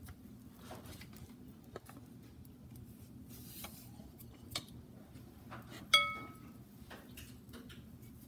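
Kitchen sounds over a low steady hum: scattered small clicks, and about six seconds in a single loud, ringing clink of a kitchen utensil that dies away in about half a second.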